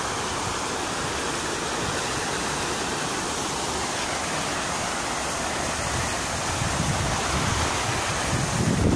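Steady hiss of fountain water splashing into a pond, with wind rumbling on the microphone toward the end.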